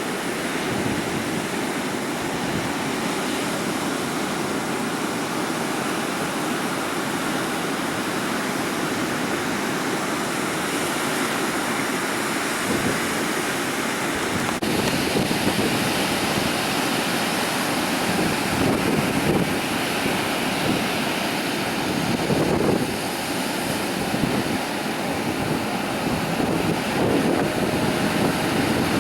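Ocean surf washing on a beach as a steady rush, with wind buffeting the microphone in gusts that grow stronger in the second half.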